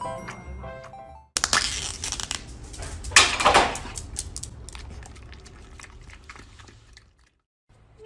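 A chiming, music-box-like melody for about the first second. It cuts off into crinkling and crackling of a plastic yogurt cup and its peeled foil lid being handled, loudest about halfway through and fading away.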